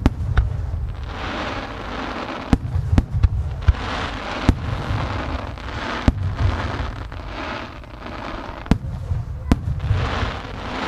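No. 5 (about 15 cm) aerial fireworks shells bursting in quick succession, about a dozen sharp booms at uneven intervals, some paired close together. Deep rumbling echoes follow the booms, and a hissing noise swells and fades between them.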